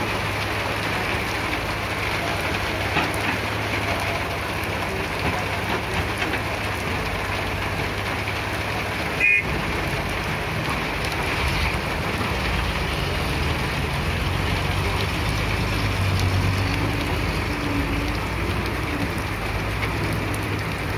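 Cat E120B excavator's diesel engine running steadily while working, under a constant noisy hiss, with one sharp click about nine seconds in.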